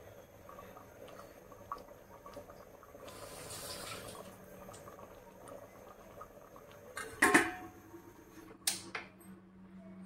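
Kitchen handling sounds: a short hiss of water or pouring about three seconds in, then a loud brief clatter of dishes about seven seconds in and a smaller knock near nine seconds.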